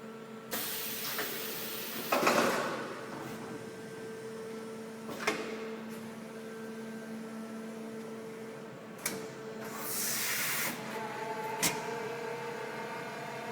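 Roku Roku RM-4V vertical machining centre running its pallet (table) change cycle: a steady machine hum, two bursts of compressed-air hiss, and four metallic clunks. From about 11 seconds in, a steadier, higher motor whine joins.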